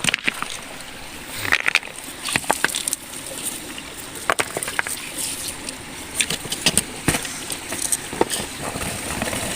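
Irregular knocks and scrapes with small splashes and sloshing, as stones and shallow water are disturbed while searching for crabs.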